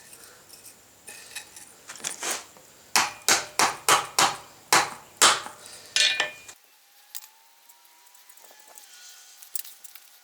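A hammer tapping on a forged steel handle. A few light knocks are followed by a quick, uneven run of about eight sharp taps that knock the handle into line with its screw holes, then it goes quiet.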